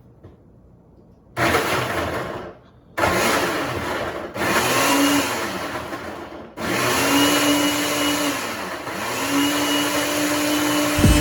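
Electric blender grinding soaked almonds with water and a date into almond milk. It is switched on about a second and a half in and runs in three loud stretches, the motor's pitch rising and then levelling off each time.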